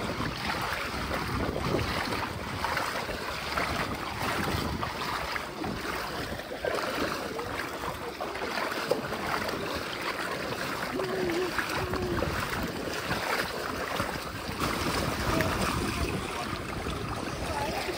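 Several people wading through shin-to-knee-deep floodwater, legs splashing and churning the water with each stride, over the rush of flowing water and wind on the microphone.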